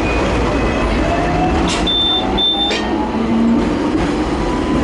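Hong Kong tram running, heard from inside the lower deck: a steady rumble of steel wheels on the rails, with the VVVF traction motor's whine slowly rising as it picks up speed. About two seconds in there are two short high beeps.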